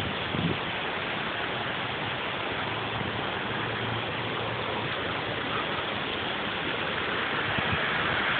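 Steady rush of fast-flowing water, the flood-swollen water left by the hurricane, with a couple of low bumps right at the start.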